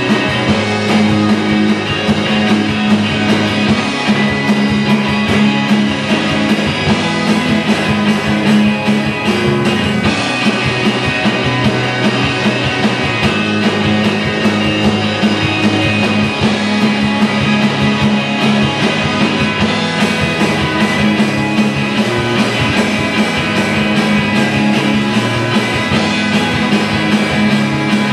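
Live rock band playing continuously: electric guitar, bass guitar, keyboard and drum kit.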